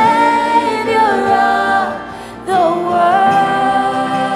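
Live worship music: women's voices singing long held notes together, with a short break between phrases about two seconds in.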